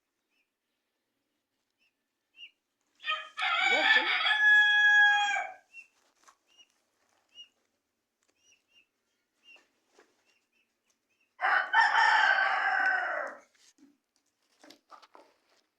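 A rooster crowing twice, each crow about two seconds long and the two about eight seconds apart, with faint short chirps in between.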